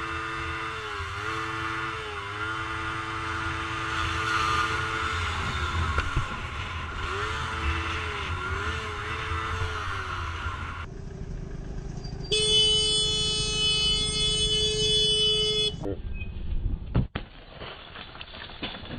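Road traffic with engine rumble and pitched tones that dip and glide, then a car horn held steadily for about three seconds, the loudest sound. A sharp knock follows near the end.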